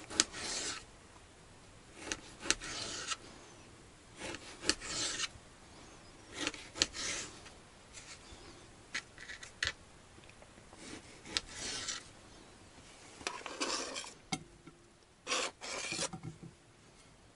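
Knife slicing through a slab of salo (cured pork fat) on a plastic cutting board: a short rasping cut with a click of the blade on the board, repeated about every two seconds. Near the end come a few more scrapes and taps as the cubes go into a frying pan.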